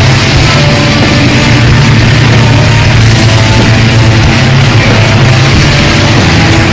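Loud heavy metal music, dense and unbroken.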